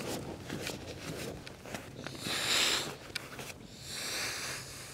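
Air hissing out through the open valve of a Blackwolf Hexatherm self-inflating mattress as the rolled-up mat is pressed down to squeeze out the last of its air: two hisses, one about two seconds in and a longer one near four seconds.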